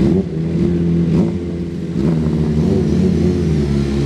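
Sport motorcycle engines revving as the bikes ride off. The pitch climbs at the start and again about two seconds in, then holds steady.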